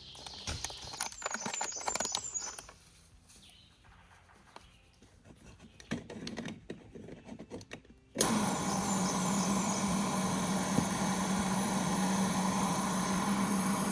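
Small clinks and knocks of a moka pot being handled and set down, then about eight seconds in a portable gas camp stove burner is lit and runs with a steady hiss and a constant low hum under the coffee pot.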